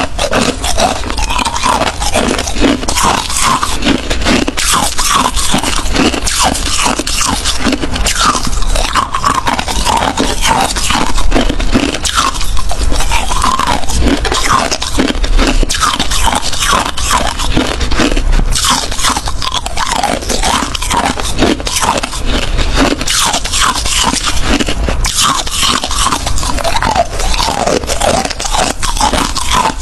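Ice being bitten and chewed close to the microphone: loud, continuous crunching with many crunches in quick succession and no pause.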